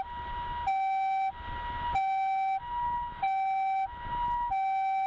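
Japanese ambulance's electronic two-tone siren sounding its alternating high-low "pii-poo" call, each tone held about two-thirds of a second.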